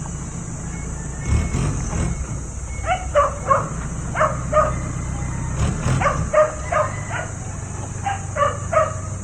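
A dog barking repeatedly, about a dozen short barks in quick clusters starting about three seconds in, over a steady low hum.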